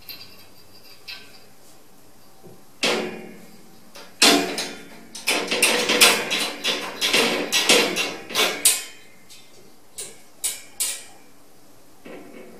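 Sliding bolt latch and wire door of a metal cage rattling and clanking as a cat paws and pulls at the bolt. One clank about three seconds in, then a dense run of clatters for about four and a half seconds, then three separate knocks and fainter rattling near the end.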